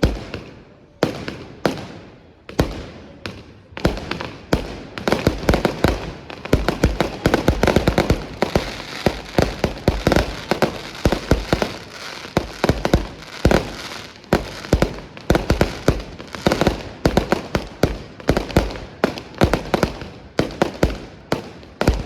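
Fireworks display: aerial shells and firework cakes banging in rapid volleys, sparse single bangs at first, then building to dense, continuous salvos of reports.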